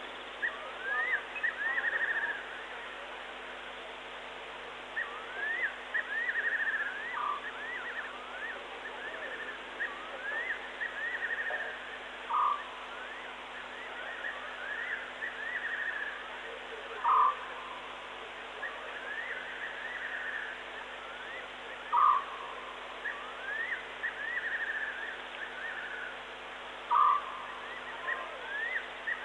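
Night-time chorus of calling animals: many quick rising chirps and trills, with a short, louder call repeating about every five seconds.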